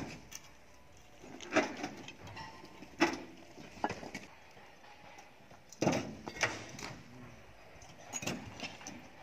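Large broken rocks being shifted by hand in a dump truck's bed, knocking against one another and the bed in a series of separate clunks, about seven in all, the loudest about a second and a half, three seconds and six seconds in.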